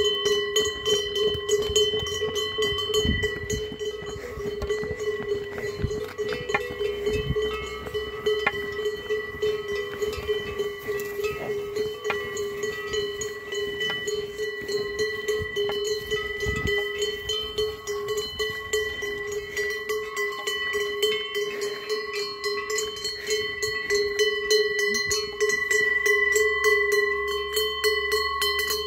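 Several cowbells on a herd of walking cows, clanging steadily and overlapping into a continuous ringing.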